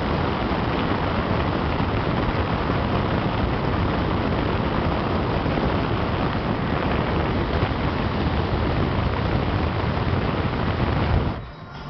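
Steady rush of wind and road noise inside a car travelling at highway speed. It drops away abruptly near the end.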